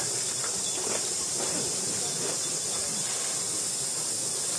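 Steady high hiss of outdoor background noise, with faint, indistinct voices behind it.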